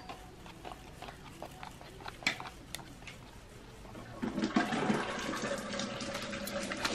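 Soft soap batter in paper-lined loaf molds being textured by a gloved hand and a wooden craft stick: scattered light wet clicks and squelches, turning into a denser, louder wet churning from about four seconds in.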